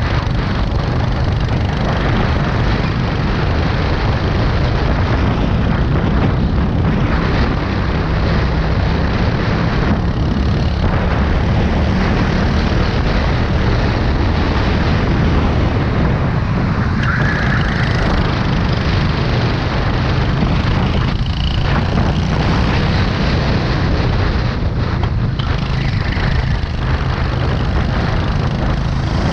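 Racing go-kart's engine running hard at speed, heard from a camera mounted on the kart, a steady loud drone mixed with rushing noise.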